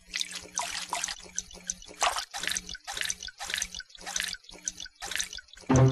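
Water dripping: a steady run of short drips, about two to three a second, over a faint low hum.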